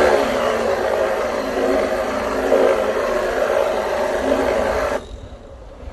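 Troglotech Auto-Drum's motor and cycloid gearbox whirring steadily as it reels in its cable and pulls the pipe-inspection crawler back in reverse. The whir stops suddenly about five seconds in.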